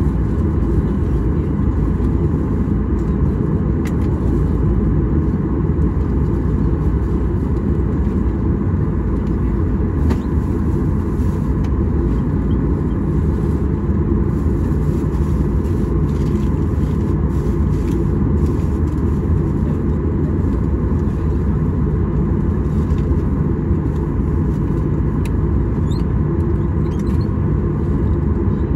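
Steady low rumble of a Boeing 737-800's cabin noise heard from inside the cabin while the airliner stands parked at the gate, with a faint steady hum over it.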